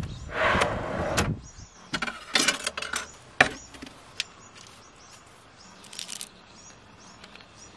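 A wooden drawer in a pickup-bed storage box slides open with a scraping rumble for about a second and a half. Then come scattered knocks and clicks of a fly reel and other gear being handled and set down.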